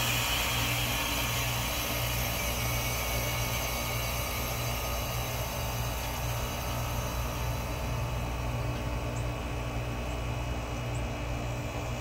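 Bryant heat pump outdoor unit running: a steady low hum from the compressor, with a hiss over it that gradually fades.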